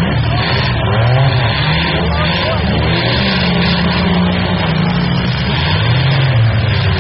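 Demolition derby cars' engines running and revving, several at once, their pitch rising and falling.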